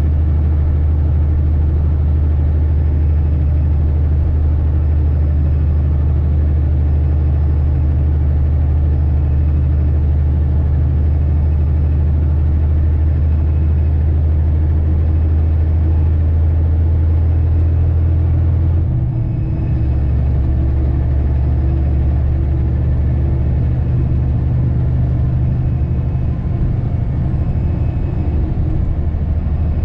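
Heavy truck's diesel engine pulling steadily up a long grade, heard from inside the cab: a deep, steady drone. About two-thirds of the way through the loudness dips briefly and the engine note changes, then the drone carries on.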